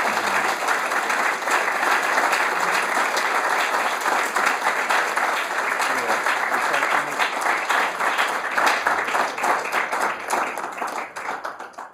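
Audience applauding, a dense steady clapping that thins out near the end.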